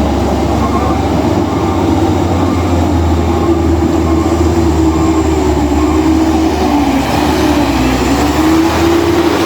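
Heavy bus's diesel engine and drivetrain running under load on a steep climb: a steady deep rumble with a whine that wavers up and down from about three seconds in.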